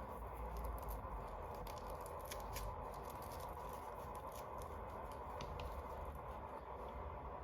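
Small scattered clicks and light rustling from hands handling small plastic toys and packaging, mostly in the first few seconds, over a steady background hiss and hum.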